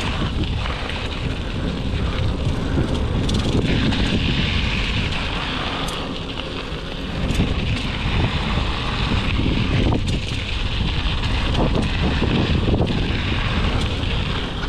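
Wind buffeting the camera's microphone while a Talon mountain bike rolls along a dirt and gravel trail, tyres crunching, with a few sharp clicks and rattles from the bike.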